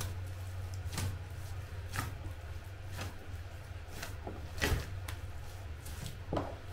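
Hands kneading a large batch of bread dough in a plastic basin, each push and fold giving a short soft slap or squish about once a second, over a steady low hum.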